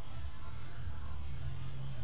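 Background music with a heavy bass line, its low notes changing every half second or so.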